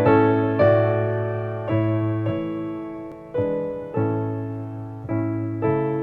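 Slow, gentle piano music: chords struck one after another, each left to ring and fade before the next.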